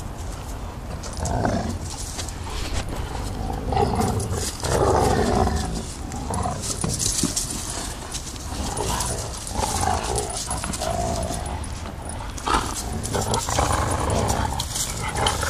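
Two dogs, an English Mastiff puppy and a pit bull, play-growling in uneven bouts while they tug a toy between their jaws.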